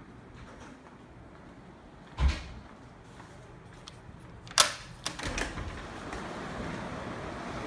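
A dull thump, then a sharp click and a few smaller knocks as a wooden door to the balcony is opened, after which a steady outdoor rushing noise swells in.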